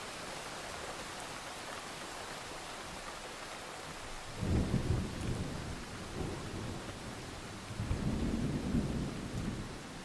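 Steady rain falling, with two low rumbles of thunder: one about four seconds in, and a second, longer one about eight seconds in that fades off shortly before the end.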